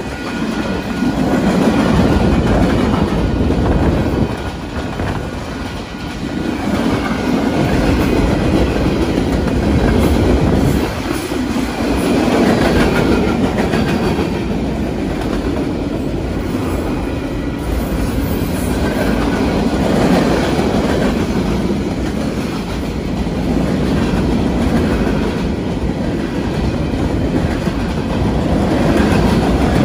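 Freight cars of a Union Pacific manifest train rolling past at a grade crossing: a loud, steady rail rumble with wheels clacking over the track, the loudness swelling and dipping as the cars go by.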